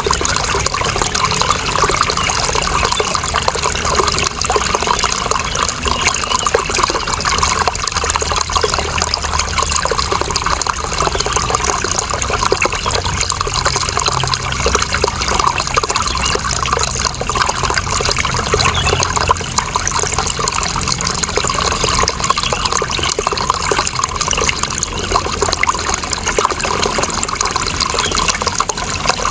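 Running water flowing and splashing steadily, an even, unbroken rush with no change in level.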